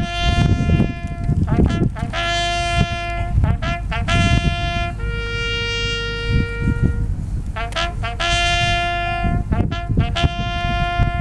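A bugle call played on a single brass horn: held notes and quick short notes on a few pitches an octave apart, with one long note in the middle of the call. Wind rumbles on the microphone underneath.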